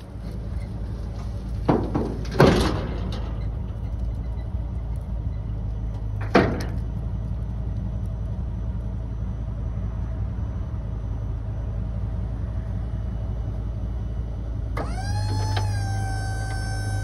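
Steel diamond-plate truck liftgate platform unfolding and lowering on its chains, with a few sharp metal clanks in the first seven seconds over a steady low hum. About two seconds before the end, a steady whine with several tones comes on, rising briefly in pitch as it starts.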